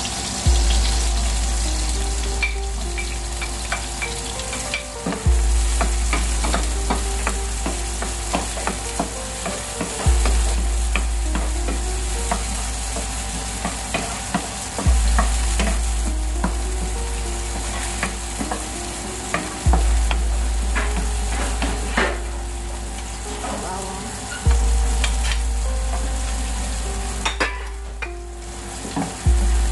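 Ginger sizzling as it fries in oil in a pan, stirred with a spatula that clicks and scrapes against the pan. Under it, a deep low hum starts sharply about every five seconds and fades away.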